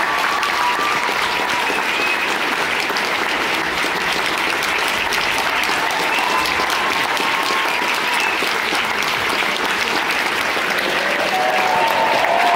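Theatre audience applauding a curtain call: dense, steady clapping from many hands, with a few short pitched calls rising above it, more of them near the end.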